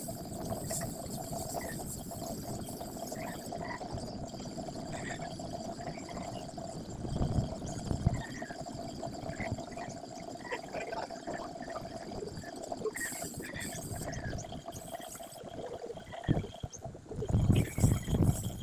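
Small portable air compressor running steadily, with the hiss of air from a paint spray gun. There are two louder low rumbles, about seven and seventeen seconds in.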